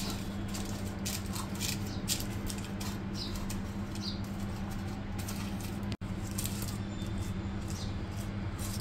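Butter paper crinkling and rustling as fingers press it into an aluminium cake tin: a quick run of short, crisp crackles over a steady low hum. A few faint high chirps sound here and there.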